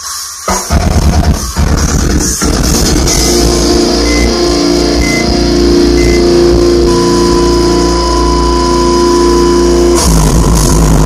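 Metal music played loud through a car's subwoofers, heard inside the cabin with heavy bass. Stop-start hits over the first couple of seconds, then a long sustained bass drop.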